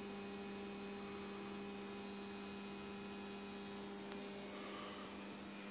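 Steady electrical hum from 230/24 V mains transformers. They run in a series resonant circuit with a 40 µF capacitor, with their 24 V secondaries short-circuited through an ammeter. The hum is an even, unchanging drone with a strong low tone and its overtones.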